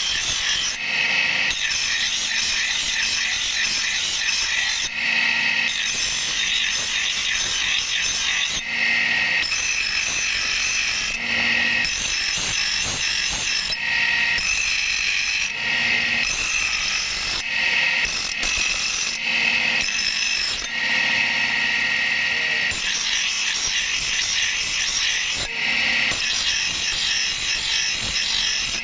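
Bench grinder's abrasive wheel grinding a steel axe blade: a harsh, hissing grind that comes and goes every second or few as the blade is pressed to the wheel and lifted off, over the steady hum of the running grinder.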